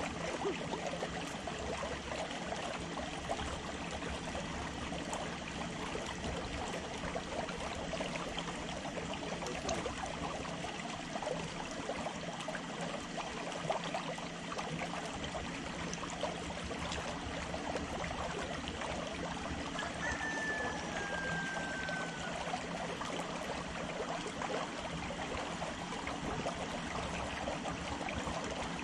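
Small waves lapping against a concrete pier edge: a steady watery wash full of little splashes. A short falling whistle is heard about two-thirds of the way through.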